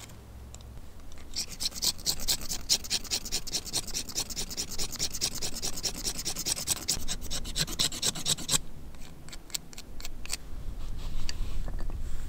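Rapid, rhythmic rasping scrape lasting about seven seconds. It stops abruptly and gives way to scattered clicks and scrapes.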